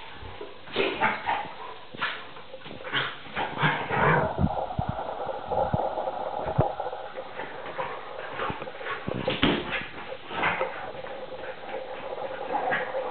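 A Vizsla puppy and a pointer play-fighting: dog whimpers and yips over scuffling and claws clicking on a tiled floor. A long drawn-out whine runs from about four to seven seconds in.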